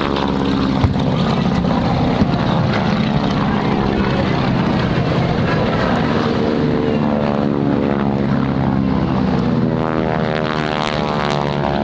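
Piston-engine propeller warbirds flying low passes, their engines droning steadily. The pitch falls as one plane passes early on and rises near the end as another comes in, with two short sharp knocks in the first couple of seconds.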